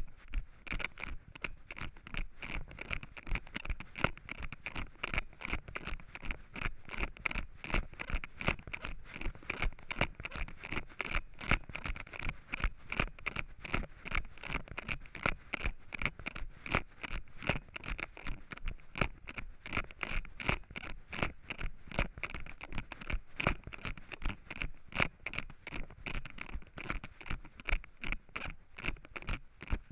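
Running footsteps on a dirt forest trail in a steady, quick rhythm of knocks, each stride jolting the hand-held camera, which rubs and scrapes in the runner's hand.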